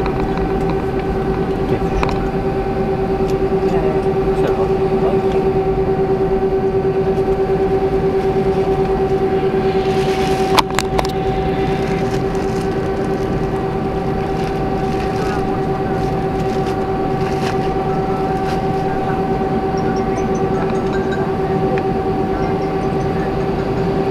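Airbus A319 cabin noise while taxiing: a steady rumble with a constant droning whine from the engines at idle and the cabin air. A single sharp click comes about ten seconds in.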